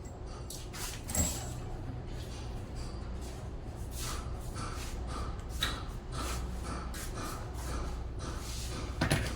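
A series of light clicks, taps and scrapes over a steady low hum, with one louder knock about a second in and a run of quick small ticks from about four seconds on.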